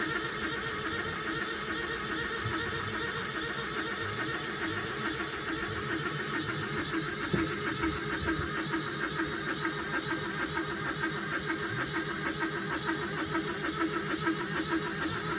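The sailboat's inboard diesel engine turning over with a steady, even mechanical rhythm.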